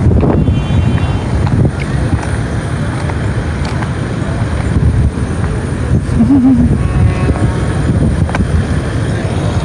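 Wind buffeting a phone's microphone: a loud, uneven low rumble.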